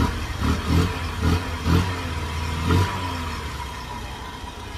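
Honda Monkey minibike's small single-cylinder engine revved in about six quick throttle blips over the first three seconds, then dropping back and fading.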